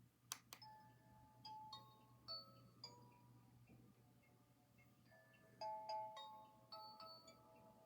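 A Snuggle Up Marshall plush toy's small speaker playing a soft chiming lullaby tune, single electronic notes in a slow simple melody, after two sharp clicks just before the tune.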